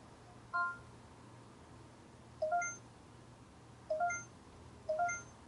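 Samsung HMX20 camcorder's touchscreen giving four short electronic beeps, each a brief two-step chord of tones, one for each press on its menu buttons.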